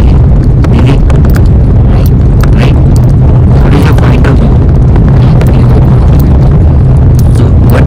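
A loud, steady low rumble, with faint clicks and crackles above it.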